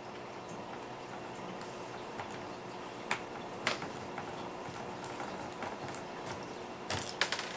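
Small screwdriver working tiny screws out of a laptop screen assembly: a few scattered clicks of metal on metal and plastic, about three seconds in and a quick cluster near the end, over a steady low hiss.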